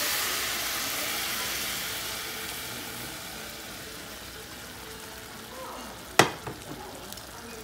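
Hot tomato sauce poured onto drained macaroni in a pan on the stove, giving a sizzling hiss that slowly fades. A single sharp knock comes about six seconds in.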